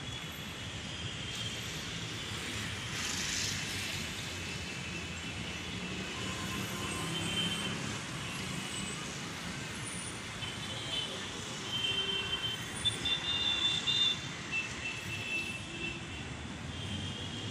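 Steady traffic noise of passing vehicles, growing louder and more uneven about two thirds of the way through.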